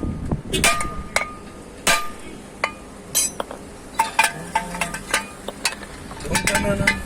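Hand tools and metal parts clinking and tapping in a loose, irregular run, several clinks ringing briefly, during work on a car's front wheel assembly.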